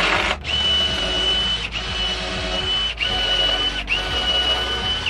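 Power drill driving screws in four runs of about a second each, its motor spinning up and then whining at a steady pitch, with short breaks between runs.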